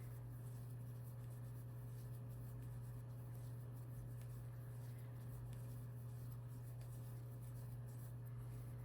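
Faint soft rubbing and light ticks of yarn drawn through stitches by a crochet hook, over a steady low hum.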